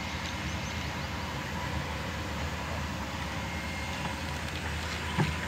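Kobelco excavator's diesel engine running steadily, a low, even drone.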